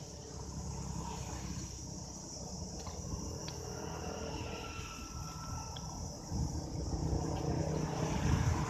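Insect chorus in grassland: a steady, even high-pitched drone. A low rumble grows louder from about six seconds in.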